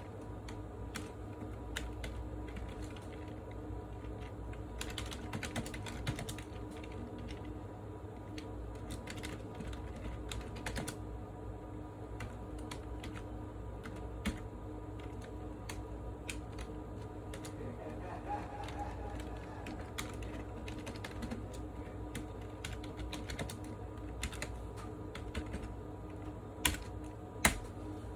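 Typing on a computer keyboard: irregular key clicks, with two sharper clicks near the end, over a steady low hum.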